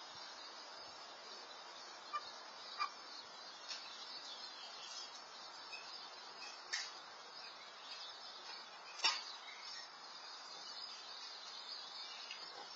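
Quiet backyard ambience: a steady, faint, high-pitched chorus of insects or distant birds, with two short chirps a couple of seconds in and two sharp clicks later on, the second the loudest.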